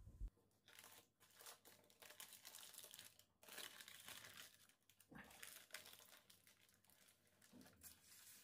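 Faint crinkling and rustling of paper being handled, with a couple of soft knocks just at the start.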